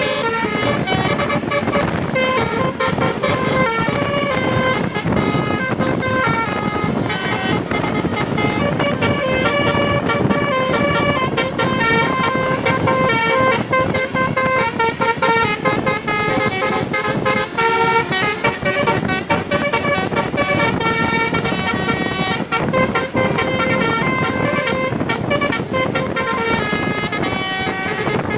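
Multi-tone telolet horn on an Indonesian tour bus playing a Basuri-style tune, many notes stepping up and down in quick melodic runs, with a steady rumble beneath.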